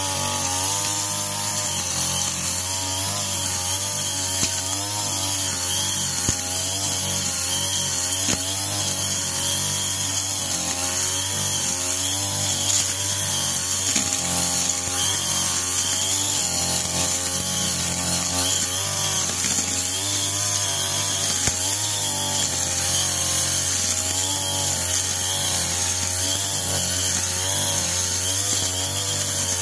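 Backpack brush cutter's small two-stroke engine running at high revs while its trimmer head cuts grass, the engine pitch wavering up and down as the head is swung through the grass.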